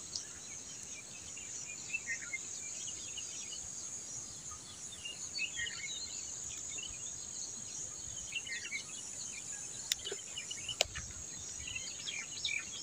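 Outdoor ambience: a steady, high-pitched insect drone with scattered bird chirps, and two faint clicks about ten seconds in.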